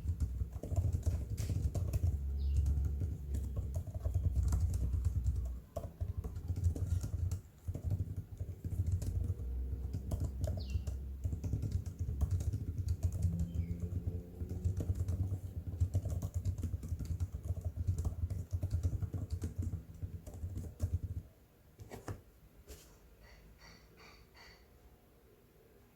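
Fast, continuous typing on the M1 MacBook Air's scissor-switch keyboard, a dense run of key clicks that stops about five seconds before the end.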